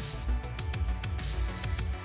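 Background music with a steady beat and heavy bass.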